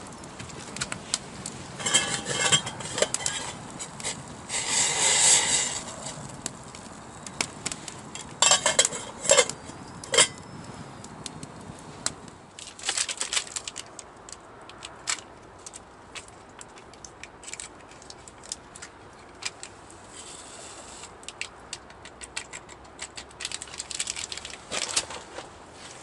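Wood campfire crackling with scattered sharp pops, overlaid by short bouts of metal-and-crockery clinking and clattering from cookware and utensils being handled, the busiest in the first half.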